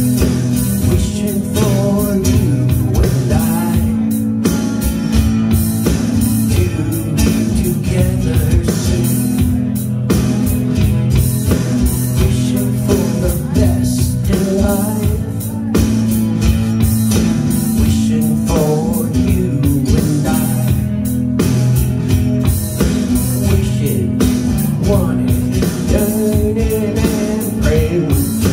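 Live rock song: a man singing into a microphone while strumming an electric guitar through an amplifier, with a steady beat.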